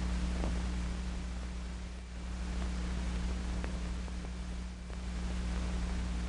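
Steady hiss and low hum of an old film soundtrack, with a few faint ticks.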